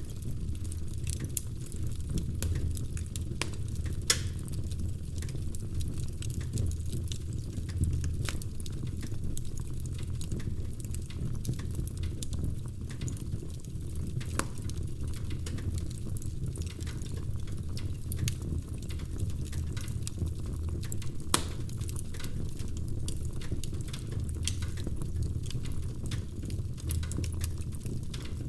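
Wood fire in a fireplace, crackling and popping irregularly over a steady low rumble of the flames, with a couple of louder pops.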